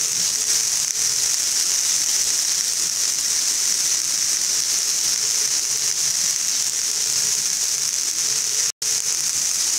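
Chopped onions and garlic sizzling steadily in hot oil in a nonstick frying pan as they are stirred, being lightly fried. The sound cuts out for an instant about nine seconds in.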